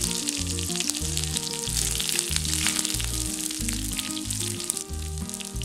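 Mustard seeds, dried red chilli and small onions sizzling in hot coconut oil in an iron kadai, with scattered crackles. Background music with a steady bass pulse plays underneath.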